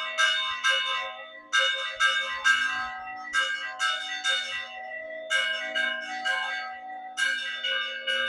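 Church bells rung by hand, struck in quick groups of three or four strokes with a short pause between groups, each stroke ringing on into the next.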